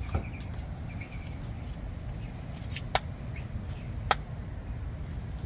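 Open wood fire crackling, with a few sharp pops about three and four seconds in, over a steady low rumble. Short high bird chirps repeat in the background.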